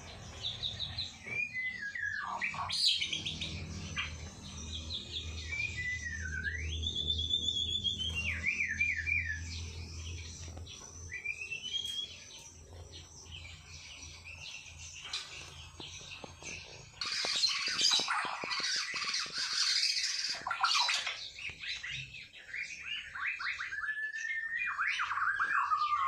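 White-rumped shama singing: varied clear whistles that slide up and down, broken about two-thirds through by a burst of harsh, scratchy chatter, then quick trills near the end.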